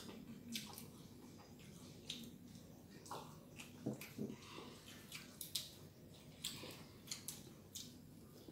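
Faint wet eating sounds: children chewing with their mouths and smacking their lips, short sticky clicks coming every second or so.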